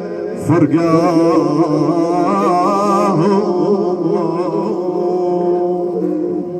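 A man's voice chanting a Shia mourning elegy (latmiya) in Iraqi style. The pitch wavers in long ornamented runs and then settles into a long held note.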